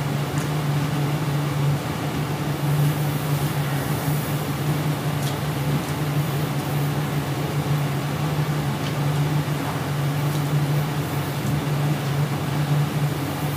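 Steady low hum over an even hiss of room tone, with a few faint ticks.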